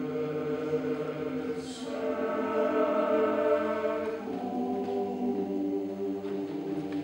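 Men's choir singing a cappella: long held chords that move to new harmonies about two and about four seconds in, with a soft sung 's' shortly before the first change.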